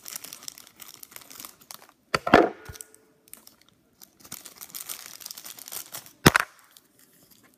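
Clear plastic toy wrapper crinkling as it is pulled open by hand. Two louder sharp tears come about two seconds in and near the end.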